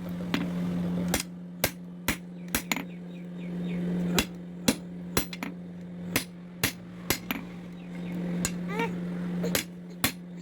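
Hammer blows on leaf-spring steel at an anvil, sharp ringing strikes at roughly two a second with uneven spacing, over a steady low hum.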